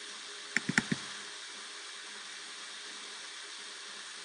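A quick run of about four mouse clicks about half a second in, over a steady hiss of microphone noise.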